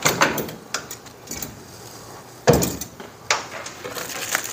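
Clicks and clunks of a Garmin Force trolling motor bow mount being handled and its arm moved, with a loud knock about two and a half seconds in and a lighter one just under a second later.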